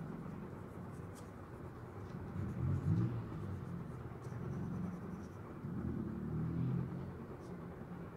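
Pencil rubbing and scratching on drawing paper, over a low, uneven rumble that swells twice.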